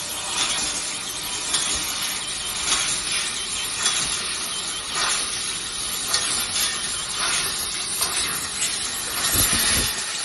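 CNC laser cutting machine running a cut: a steady hiss with small irregular crackles.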